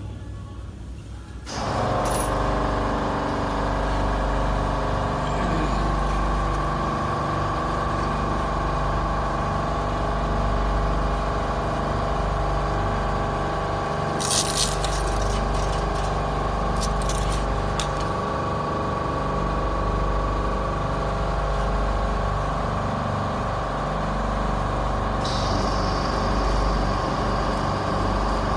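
PY-80B blister-opening machine comes on about a second and a half in and runs steadily: a dense mechanical hum and whine from its motor and pressing-roller drive. A few sharp clicks come about halfway through.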